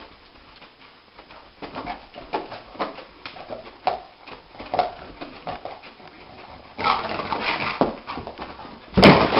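A dog whimpering and yipping in its sleep: a run of short, repeated cries, then a louder burst of noise near the end.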